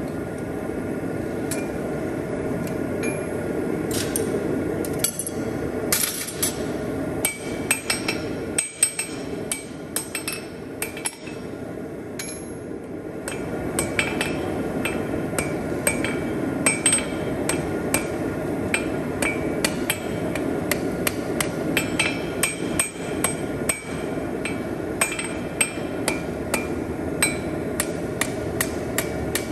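Blacksmith's hand hammer striking hot steel on an anvil while forging a pair of split calipers: a long run of blows, often several a second, each with a bright metallic ring. The blows thin out for a few seconds near the middle, and a steady low rushing noise runs underneath throughout.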